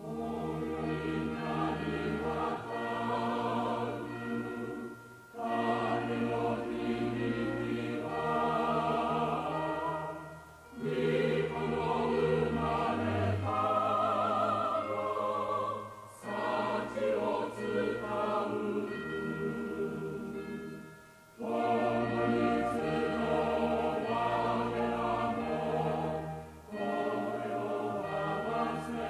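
A choir singing a Christmas hymn with low accompaniment underneath. It starts right at the beginning and goes in phrases of about five seconds, with short breaks between them.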